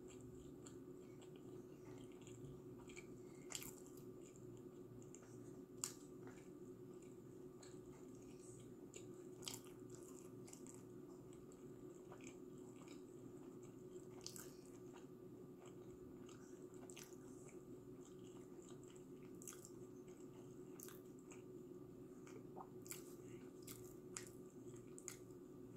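Faint, close-miked chewing of pizza crust: soft crunches and wet mouth clicks scattered through, a few a little louder, over a faint steady low hum.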